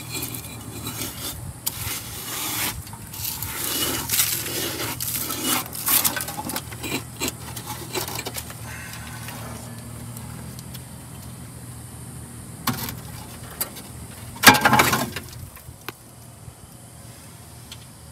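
Irregular rustling and scraping as dirt, leaves and debris are pulled by hand out of an old truck's engine bay, with one short, louder scrape near the end.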